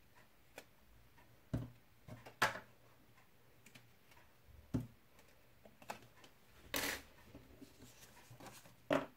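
Paper and card stock being handled on a craft table, with washi tape being peeled: scattered light taps and clicks and a louder paper rustle about seven seconds in.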